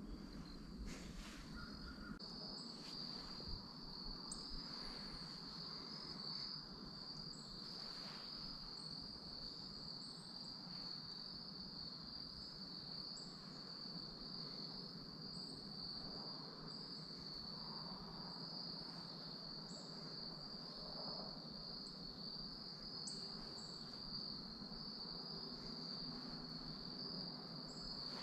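Insects trilling steadily: a continuous, thin, high-pitched drone that never lets up.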